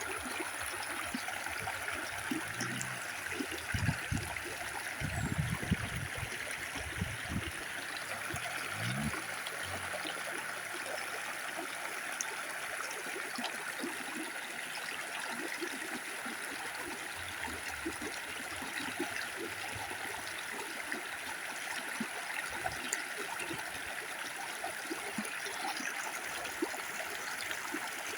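Small stream running steadily, a continuous rush of water with some deeper, louder sounds in roughly the first ten seconds.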